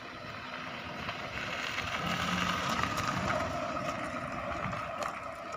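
A small Suzuki hatchback car driving past at low speed on a dirt road: engine running with tyre noise on the loose surface. It grows louder as the car comes close, about two seconds in, then eases off.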